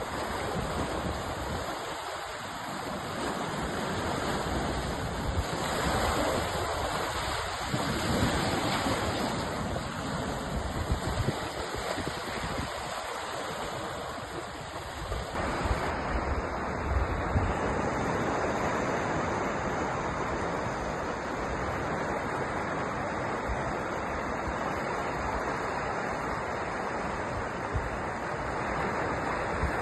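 Sea waves washing onto the shore in a continuous rush of surf, swelling and easing every few seconds.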